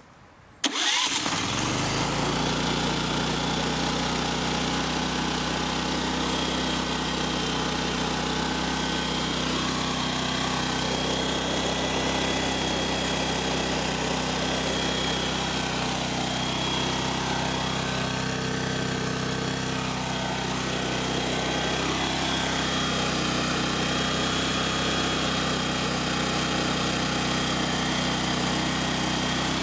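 Small petrol engine of a Chinese 3 kW inverter generator, its electric starter jumped directly with a wire, catching almost at once under a second in and then running steadily. It runs freely with the generator unplugged from its shorted inverter board, which otherwise holds it back.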